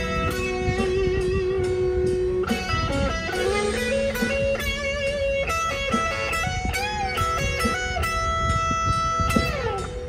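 Electric guitar played through a small Orange combo amp: a lead line of held notes with string bends and vibrato, and a slide down the neck near the end.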